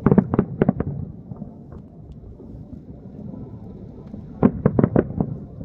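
Two quick volleys of distant explosive bangs, about five in each, a few seconds apart, over a steady low rumble.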